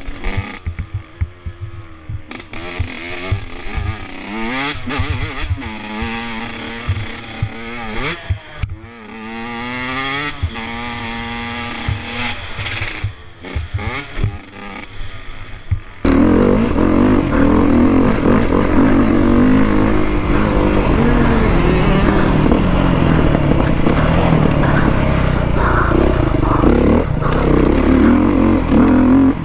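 Single-cylinder dirt bike engine being ridden hard, its pitch rising and falling as the rider revs and shifts, with clattering knocks from the bike over the rough track. About halfway through the sound jumps abruptly to a louder, rougher engine and rush heard close to the bike.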